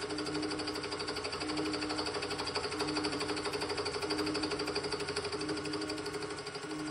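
An end mill on a milling machine cutting the face of a metal casting in a finishing pass: a steady, fast rhythmic chatter of the cutter teeth over the motor's running sound.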